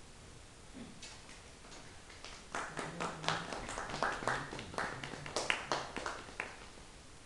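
A small audience clapping: a few scattered claps about a second in, then a short burst of uneven claps that fades out shortly before the end.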